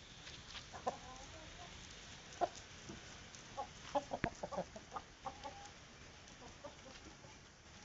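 Free-range village chickens clucking as they feed, a run of short scattered clucks that bunch up near the middle, with one sharp click among them.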